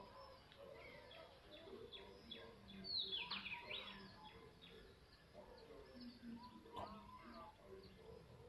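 Faint, repeated high chirps: short notes that sweep down in pitch, with a louder burst of several calls about three seconds in and scattered weaker calls after.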